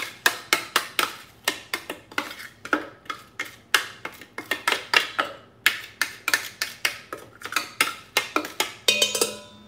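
Quick repeated knocks and scrapes, about three or four a second, as chopped herbs are scraped and tapped out of a food processor bowl into a stainless steel mixing bowl. Near the end the metal bowl gives a brief ringing clink.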